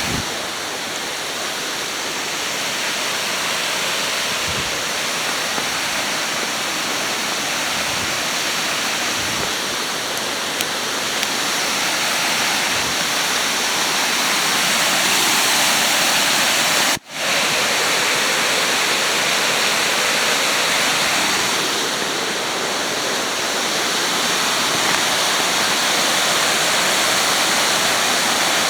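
Rain-swollen creek waterfall in full flow, water pouring over rock with a loud, steady rush.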